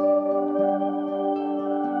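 Background music of slow, sustained keyboard chords, with the notes changing a couple of times.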